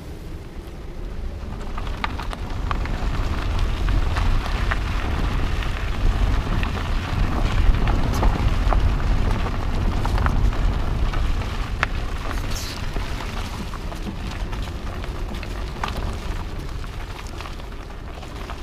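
Car tyres rolling slowly over grass and then loose gravel: a steady low rumble with scattered crackles and pops of stones under the tread, starting about two seconds in and loudest in the middle.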